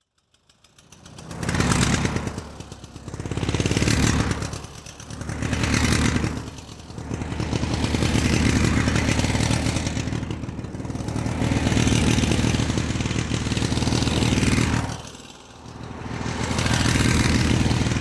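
An engine revving up and down in swells about every two seconds, then held high for several seconds, dropping off briefly near the end and revving up again before cutting off suddenly.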